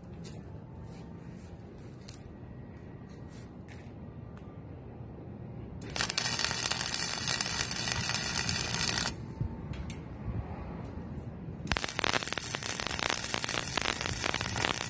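Electric arc welding on a steel square-tube frame: two crackling weld runs of about three seconds each, the first starting about six seconds in and the second near the end.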